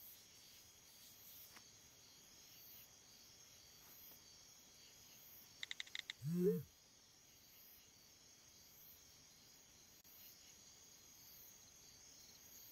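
Faint night ambience of crickets chirping. About six seconds in, four quick beeps, then a brief low hum-like sound that rises in pitch.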